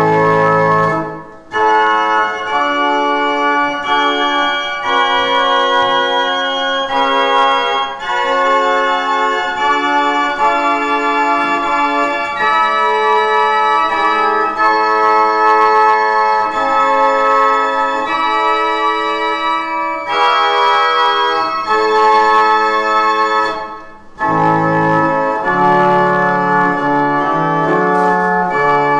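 Pipe organ playing the organ voluntary: sustained chords that change every second or so, with two brief breaks, about a second and a half in and near 24 seconds. Deep pedal bass notes sound at the start and again in the last few seconds.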